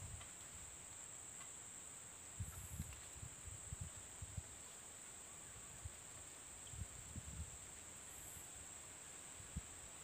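Faint, steady high-pitched insect buzzing, with a few low dull bumps scattered through it.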